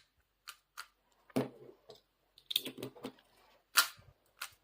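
Scattered sharp clicks and clacks from a QiYi M Pro magnetic 3x3 speedcube being turned and handled, a small cluster of them a little before three seconds in.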